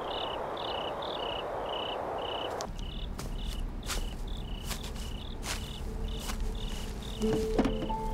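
Crickets chirping in a steady rhythm, about two chirps a second, over a hiss that cuts off suddenly about two and a half seconds in. A few sharp clicks follow, and music comes in near the end.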